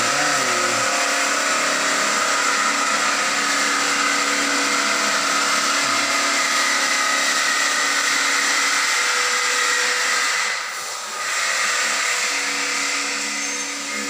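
Steady, loud drone of motor-driven machinery: a constant whine with several tones over a hiss. It dips briefly about eleven seconds in, then carries on.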